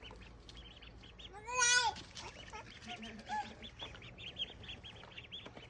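Ducks calling: one loud, drawn-out call about a second and a half in, over a continual run of short high peeps.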